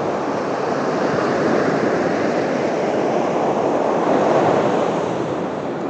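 Steady rushing of wind and water, swelling a little about four seconds in and easing near the end.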